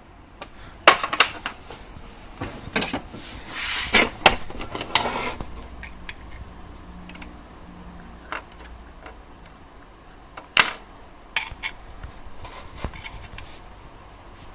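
Metal tools and small parts clinking and knocking as they are handled on a workbench, in scattered single strikes, with a brief rustle around four seconds in.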